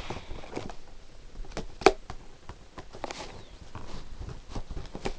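Plastic packaging being handled and pried at by hand: scattered light clicks and rustles, with one sharper snap about two seconds in.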